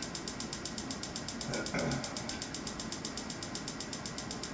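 Storz Medical focused shockwave therapy applicator firing pulses into the tissue: a steady, rapid train of even clicks, several a second.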